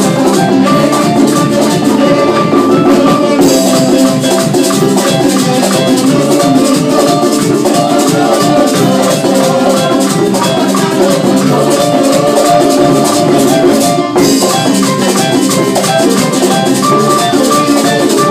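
Live merengue band playing: alto saxophone lines over electric bass and keyboard, with a güira scraping a steady, fast rhythm.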